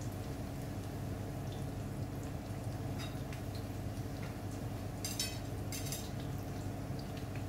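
Breadcrumb-coated hammour fillets shallow-frying in hot oil in a frying pan, the oil bubbling with scattered small crackles and two louder spits about five and six seconds in, over a steady low hum.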